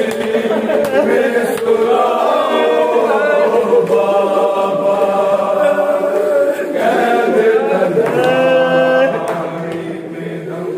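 A chorus of men's voices reciting a noha, a Shia mourning lament, unaccompanied, with one long held note about eight seconds in before the voices fade somewhat.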